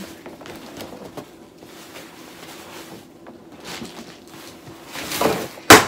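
A large cardboard box being handled and shifted, with faint rustles and light knocks, then a single loud sharp knock near the end as something is dropped.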